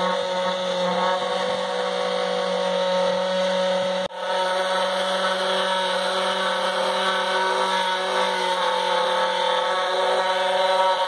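Corded electric palm sander running steadily against a fiberglass boat hull, a constant motor drone and buzz. It drops out for a moment about four seconds in and starts again.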